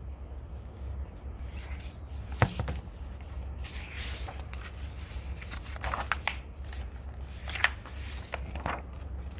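Hardcover picture book being opened and its pages turned by hand: several soft swishes of rustling paper, with one sharp tap about two and a half seconds in, over a low steady hum.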